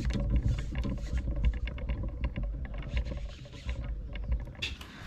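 A baitcasting reel clicking rapidly as line is cranked in while a hooked fish is fought from a kayak, over a steady low rumble of wind and water.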